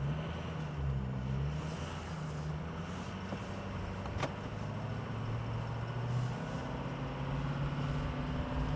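Ford F350's 6.0L Power Stroke V8 turbodiesel running as the truck drives off, its pitch drifting gently up and down, with a single click about four seconds in. The engine, just repaired from a crank-no-start, is running well.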